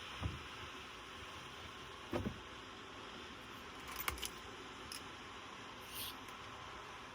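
A few light knocks and clicks over a steady background hiss.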